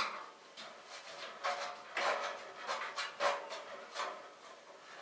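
Irregular clicks, knocks and scrapes of plastic and metal parts being handled as fans are taken out of a PC tower case, with the sharpest click right at the start.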